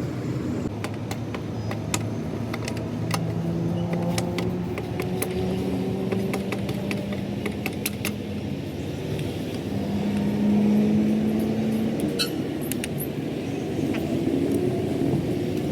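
Engines running and shifting speed, their hum rising and falling in steps, with many sharp metallic clicks and clinks scattered through.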